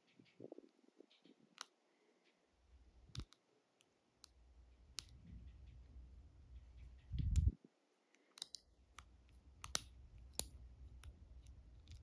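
Faint, scattered small clicks and ticks of a dimple pick working against the pins inside an Ultion 3-star dimple lock, over stretches of low rumbling handling noise.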